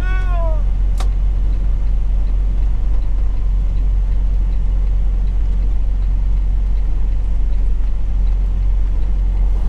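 Steady low drone of a Freightliner Cascadia truck's engine and road noise heard inside the cab, with a turn signal ticking faintly about twice a second. A short falling tone sounds at the very start, and a sharp click comes about a second in.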